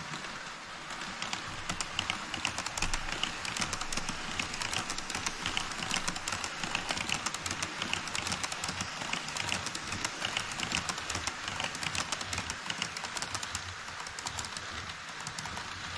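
HO-scale model E5 series Shinkansen running across a model truss bridge on KATO Unitrack: a rapid, uneven clatter of wheels clicking over the track joints. It builds about a second in and eases off near the end as the train passes.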